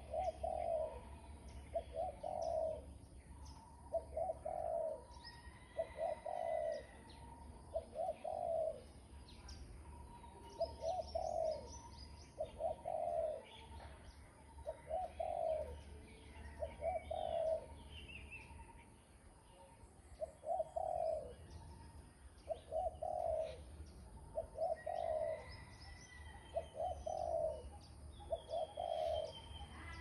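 Spotted dove cooing: a long series of low coos, one every second or so, broken by a few short pauses. Small birds chirp faintly higher up.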